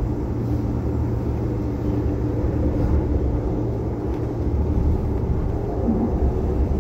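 Steady low rumble and hum of a light-rail train car running along the track, heard from inside the car.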